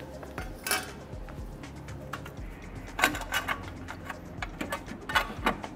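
Short metallic clicks and rattles, one early and then two quick clusters about three and five seconds in, as a turbo heat shield on an S55 engine is worked loose by hand, over background music.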